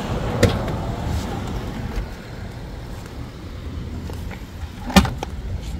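Car engine running with a steady low rumble, broken by two sharp knocks, one about half a second in and a louder one near the end.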